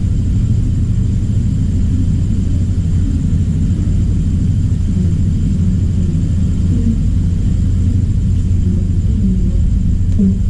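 A steady low rumble without breaks.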